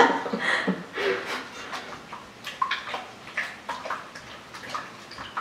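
Runny homemade slime made from condensed milk and cornstarch being handled and stirred, giving short irregular wet squelches and clicks.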